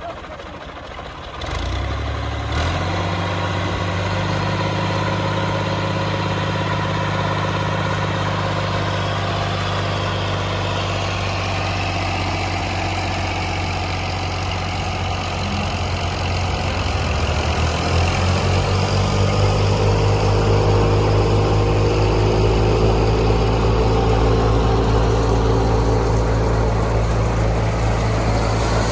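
Clayson 8080 combine harvester's engine running steadily. It comes up strongly about a second and a half in, then grows louder and deeper about two-thirds of the way through, with a faint rising whine.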